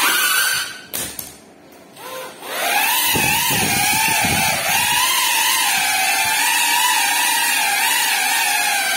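GEPRC FPV quadcopter's brushless motors and propellers whining, the pitch wavering with throttle. The sound falls away about a second in, comes back about two and a half seconds in and then holds steady, with a low rumble for a couple of seconds soon after it returns.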